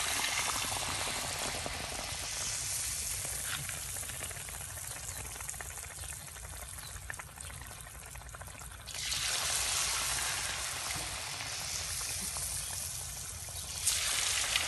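Batter-coated banana pieces deep-frying in hot oil in a wok, a dense sizzle. It flares up at the start and again about nine seconds in, easing off in between. A few sharp clicks come near the end.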